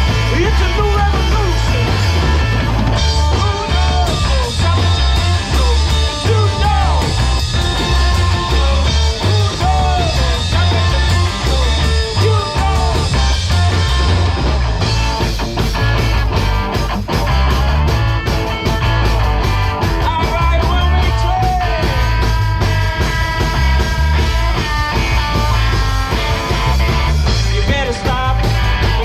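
Live rock band playing loudly, with a pulsing bass and steady drum hits.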